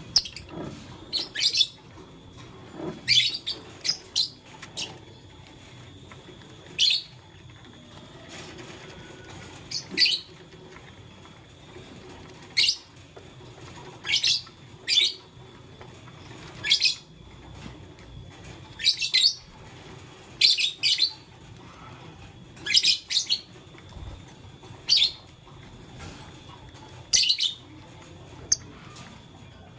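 Lovebird chirping: short, high-pitched calls repeated at irregular intervals, roughly one every second or two, sometimes in quick pairs.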